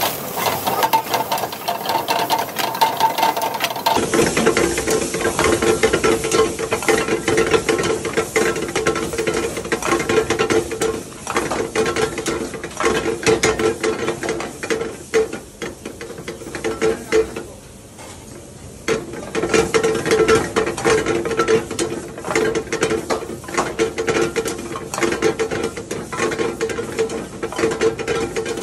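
Metal ladle stirring and scraping prawns around a hot wok, a fast run of clinks and scrapes over sizzling oil. It eases off briefly about two-thirds of the way through.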